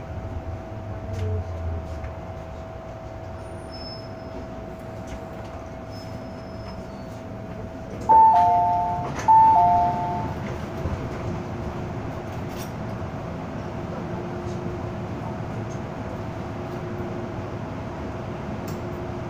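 Interior of an MTR M-Train metro car running, a steady rumble with a constant hum. About eight seconds in, a loud two-note falling chime sounds twice. In the last few seconds a steady lower whine joins as the train comes into a station.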